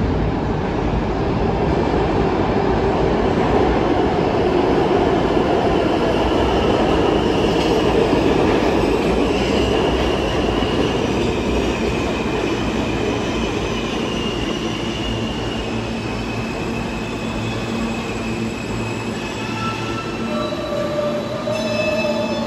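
New York City subway train running through the station, a steady loud rumble of wheels on rail with drawn-out high-pitched wheel squeal over the second half. The noise slowly eases, and a few steady pitched tones come in near the end.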